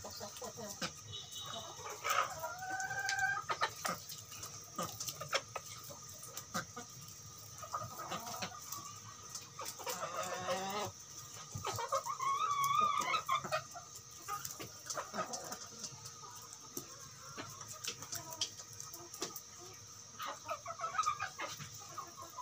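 A small flock of ayam kampung (Indonesian village chickens) clucking, with many short clucks throughout and longer, wavering calls a couple of seconds in, around the middle and near the end. A steady high hiss sits underneath.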